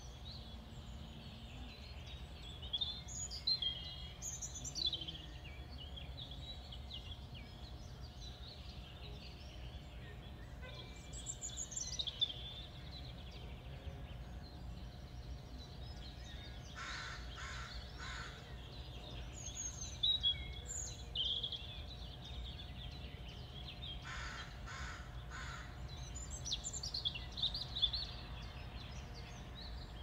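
Small birds chirping and calling, with short bursts of quick high notes scattered through. Twice, harsher calls of a few rapid repeated notes. A steady low rumble and a faint steady hum lie underneath.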